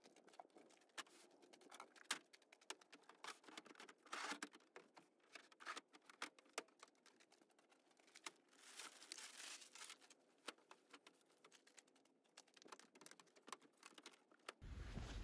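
Faint, scattered clicks and taps with brief rustling as gear, bins and cushions are handled and set in a plastic-lined pickup bed; the noise grows louder near the end as bedding is shifted.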